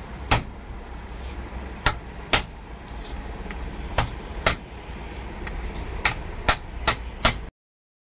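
Hammer blows on a steel drift held against the metal yoke housing of a 24-volt Leyland starter motor, about nine sharp strikes, mostly in pairs, each with a short metallic ring. The sound cuts off abruptly near the end.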